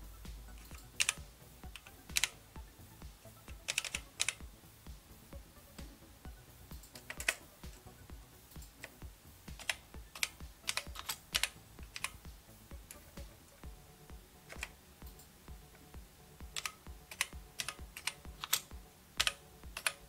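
Keys of an Amstrad CPC 464 keyboard, converted to work over USB, being typed on: irregular clicks and clacks of key presses, some in quick runs, others spaced a second or more apart.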